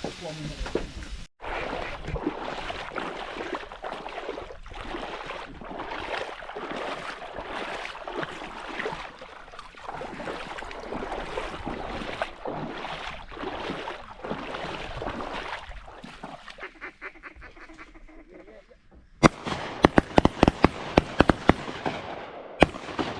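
Ducks quacking and calling in a dense, continuous chorus. Near the end, after a brief lull, comes a quick series of about a dozen loud sharp cracks.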